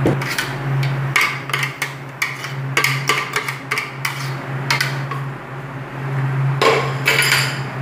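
A spoon knocking and scraping against a blender jar as ground dried beef is emptied out into a frying pan: a string of sharp clicks and taps, with a longer scrape near the end. A steady low hum runs underneath.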